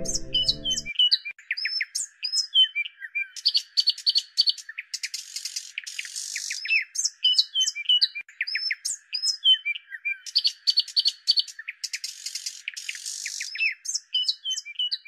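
Songbirds chirping and whistling, many short calls in quick bursts, some sliding up or down in pitch. The tail of a song's accompaniment stops about a second in, leaving only the birdsong.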